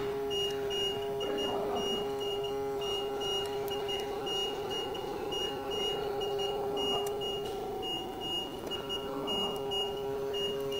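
Steady electrical machine hum from a running LCD screen separator machine, with a thin high whine that keeps cutting in and out.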